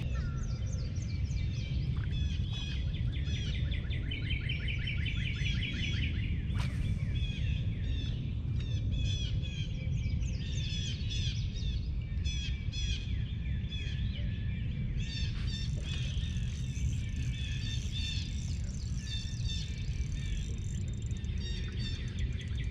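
Birds chirping and singing in quick repeated notes, many calls overlapping, over a steady low rumble.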